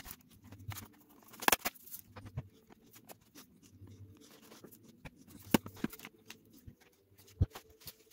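Scattered clicks and knocks, the loudest about a second and a half in and again past five seconds in, over a faint low hum that pulses about every second and a half.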